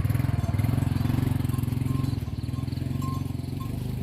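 A small motor vehicle's engine running steadily and slowly fading away.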